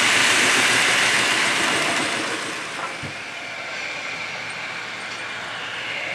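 Model freight train running close by, the wheels and motor making a steady rushing noise that fades about two seconds in. A fainter running sound from another model locomotive follows and slowly grows as it approaches.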